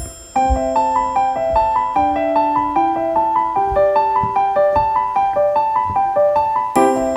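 Background piano music: a repeating broken-chord figure over a bass line that steps up about once a second, after a brief pause at the start. Fuller chords come in near the end.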